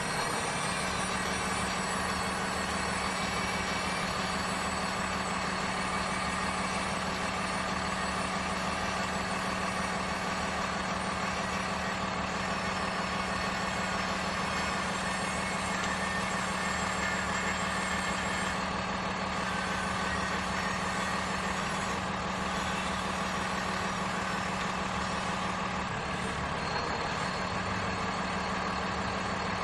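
Steady mechanical drone of radio-controlled construction models at work, a constant motor hum with a steady high whine above it.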